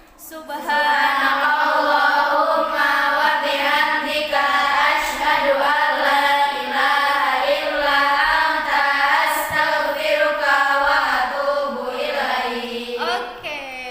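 A group of schoolgirls singing together in unison, a melodic chant of held notes that starts about a second in.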